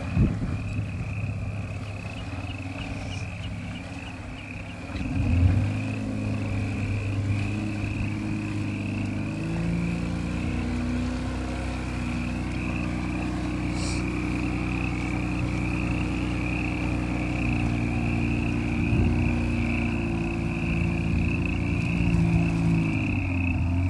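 Supercharged Toyota Land Cruiser 80-series engine running at low speed as the truck drives slowly off a snowbank onto grass, pulling harder from about five seconds in and holding steady. A high, pulsing animal chorus runs underneath.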